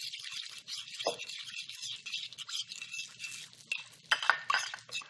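A utensil is stirred quickly through an oil-and-lemon dressing in a glass mixing bowl. It makes rapid scraping strokes and light clinks against the glass.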